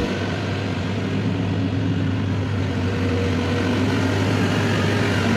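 Freshly overhauled Dongfeng Cummins 6CTAA8.3 inline-six turbo diesel in a motor grader running steadily on its test run, a little louder toward the end.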